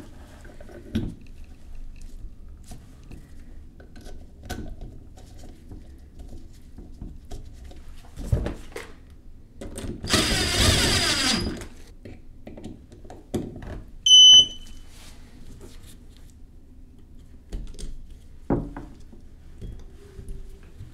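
Small clicks and knocks of parts being handled on the aluminium vacuum pump. About ten seconds in, a small handheld power tool whirs for about a second and a half. A few seconds later comes a short, loud high-pitched beep.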